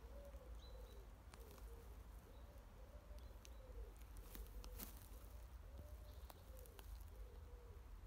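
Faint, low cooing of a pigeon: a run of repeated soft calls, one after another, each rising and falling. Scattered light clicks and crackles sound alongside.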